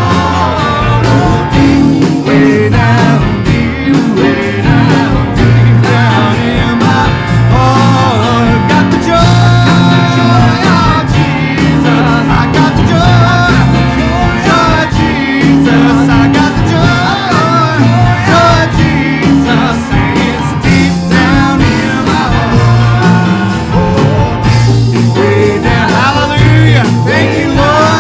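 Live country-gospel worship band playing with guitar and a steady beat, with singing over it.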